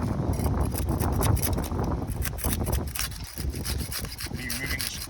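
Rough scraping and rubbing in many short, irregular scratchy strokes, over a low rumble.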